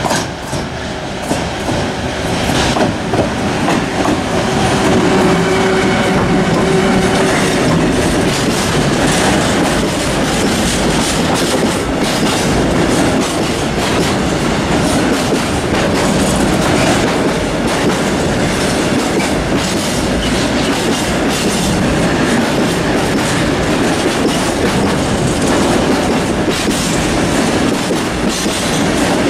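Freight train of tank wagons passing close by on the through track, hauled by a Siemens Vectron electric locomotive that goes by in the first seconds. A steady heavy rolling rumble follows, with wheels clacking over the rail joints.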